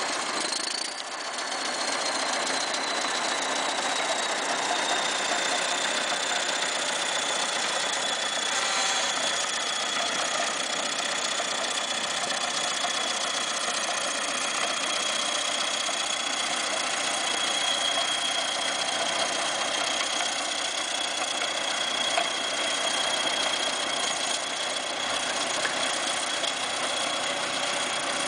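Chelyabinsk T-130M crawler bulldozer's diesel engine running steadily as the machine works over a silage pile, packing it down. A thin high whine rides over the engine and slides a little lower in pitch over the first several seconds, then holds steady.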